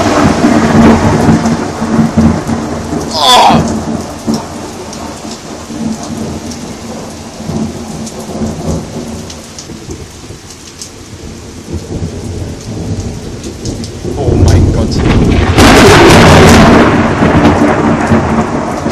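Thunder from close lightning over steady heavy rain. The rumble at the start rolls off into the rain hiss, then about fourteen seconds in a new peal builds to a sharp, loud crack and rolls on for a few seconds.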